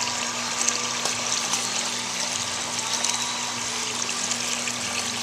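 Small waterfall: water falling and splashing steadily, with a steady low hum beneath it.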